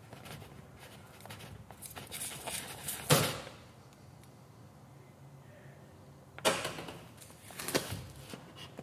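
Hands opening a cardboard product box: scraping, rustling and clicking of cardboard and a peeled plastic seal tab, with two louder knocks, about three seconds in and about six and a half seconds in.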